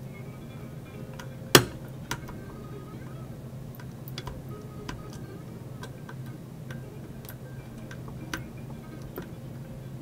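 Irregular small metallic clicks and ticks of a screwdriver working a screw in a sheet-metal computer drive cage, with one sharp, loud click about one and a half seconds in.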